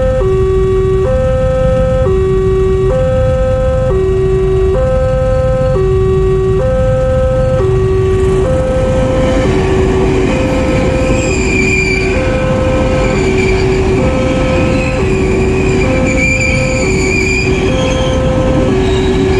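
Railway level-crossing alarm sounding its two-tone warning, a higher and a lower tone alternating about once a second, over a steady low rumble. From about eight seconds in, a KRL electric commuter train passes, adding rushing noise and a high whine that wavers up and down.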